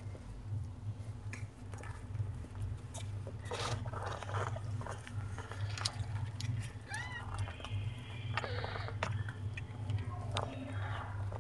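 Mother cat licking and cleaning her newborn kitten: wet licking and chewing sounds with scattered clicks over a steady low hum. A short high squeak about seven seconds in, and a brief cry soon after, come from the newborn kitten.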